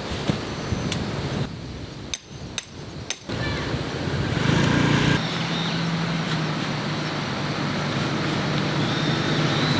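An engine running steadily at low revs, coming in about four seconds in, after a few sharp clicks and knocks.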